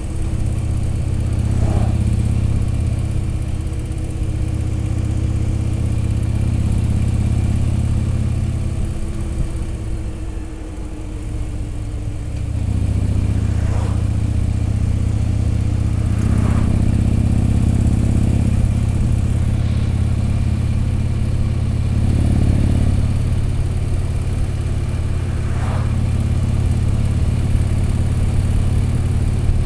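Harley-Davidson touring motorcycle's V-twin engine running at road speed with a steady low drone, easing off about nine seconds in and pulling again a few seconds later.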